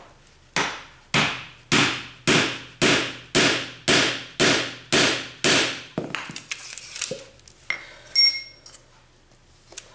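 Rubber mallet striking a metal rammer on rocket tooling about ten times in a steady rhythm, close to two blows a second, packing an increment of black-powder fuel into a core-burner rocket tube. A short ringing clink about eight seconds in.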